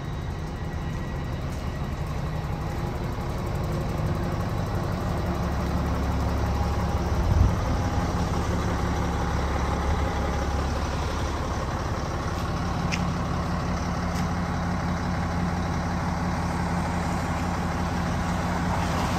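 Volvo A25D articulated dump truck's diesel engine idling steadily, a little louder for a few seconds in the middle. A single thump about seven seconds in.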